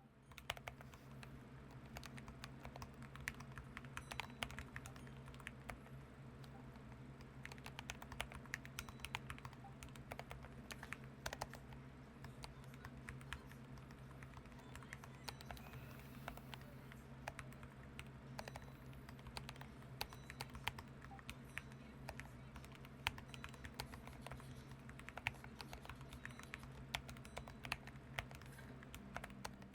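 Continuous typing on the Jiffy75 split low-profile mechanical keyboard with its Mist low-profile switches: a steady patter of soft, quiet key clicks.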